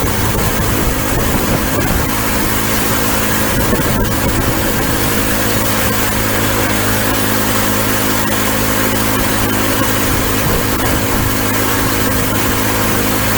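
Small engine running at a steady speed with an even, unchanging drone.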